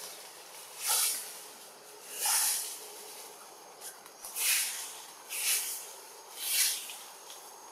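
Short, high-pitched bursts of hiss, repeating about once a second, over a faint steady background.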